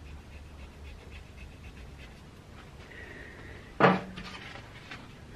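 A small piece of wood scraping on the copper commutator of a 1930s–40s Frigidaire repulsion-induction motor's armature held in a lathe, cleaning off its black deposit. The scraping comes as faint, evenly repeating strokes over a low steady hum. A single sharp knock, the loudest sound, comes just under four seconds in.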